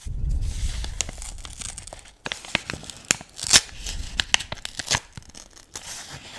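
Object handling close to the microphone: a low rubbing rumble for about the first two seconds, then a run of sharp clicks and taps.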